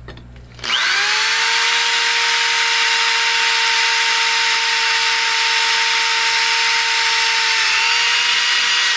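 Handheld power drill spinning a small bit at high speed, drilling a pilot hole through a spot weld in a steel idler pulley. The motor starts under a second in, climbs quickly to a steady whine with the hiss of the bit cutting steel, and holds until it begins to wind down at the very end.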